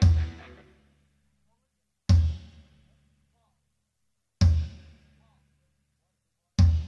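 Amplified acoustic drum kit in a sound check: four single accented hits about two seconds apart, each a deep bass drum struck together with a bright crash, ringing out for under a second with silence between.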